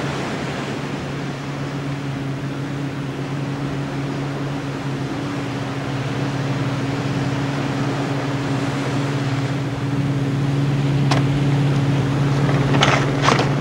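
Engines of two small motorboats droning steadily across the water, getting a little louder later on. A few sharp clicks near the end.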